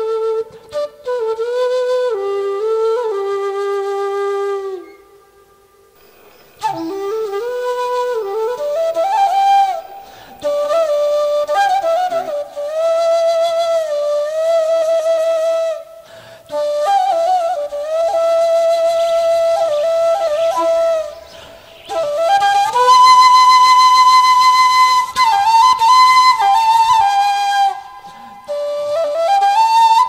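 Background music led by a flute playing a slow melody, in phrases broken by short pauses.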